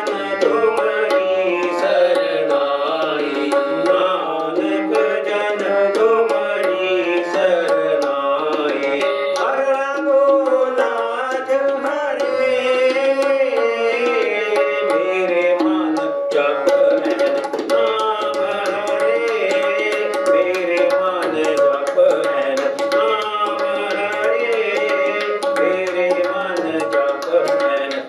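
Sikh kirtan: two harmoniums playing a continuous melody with tabla accompaniment, and voices singing a devotional hymn over them.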